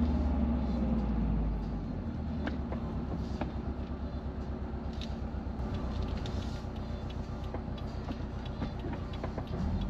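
2021 Subaru WRX STI's turbocharged flat-four engine heard from inside the cabin, louder at first and then easing off about a second and a half in to a quieter, low pulsing rumble, with a few light clicks over it.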